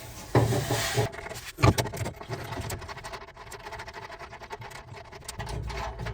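Wrench working the lock nut inside a metal tool chest drawer. A rubbing, handling noise comes first, then one sharp knock, then a run of small irregular metallic clicks and scrapes.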